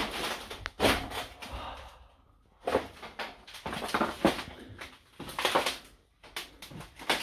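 Footsteps and knocks on piled junk: a string of separate clunks and rattles as someone clambers over scrap metal, stacked window frames and boxes. A sharp knock comes at the very start, and more follow every second or so, bunching up near the end.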